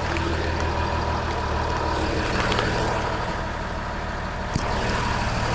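A large vehicle engine idling steadily, with a brief click about four and a half seconds in.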